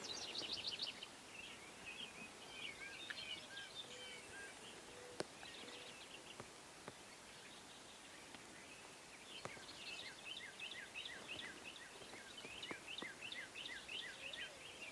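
Faint songbirds singing: a fast run of short high chirps at the start, then a longer string of repeated chirps at about four notes a second from about ten seconds in. A single faint sharp click about five seconds in.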